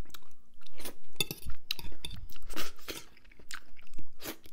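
A person chewing a mouthful of cheesy broccoli close to the microphone, a run of irregular crunchy bites and chews.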